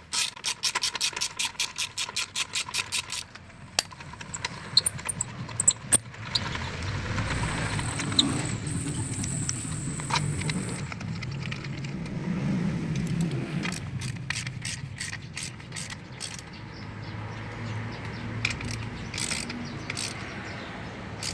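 Ratchet wrench with a 14 mm socket clicking as the exhaust bracket bolts are tightened, in a fast even run of about six clicks a second at first, then in short scattered runs later. A low rumble runs through the middle.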